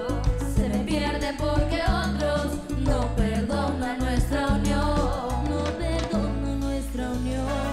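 Children singing a song together into microphones over a live band, with a steady bass line under the voices.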